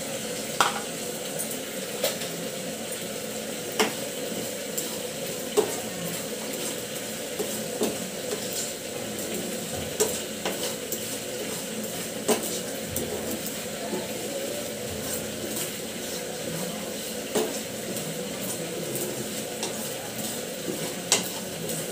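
Black sesame seeds being dry-roasted in a non-stick frying pan and stirred with a spatula: the seeds scrape and rattle across the pan over a steady hiss, with a sharp click every couple of seconds as the spatula knocks the pan.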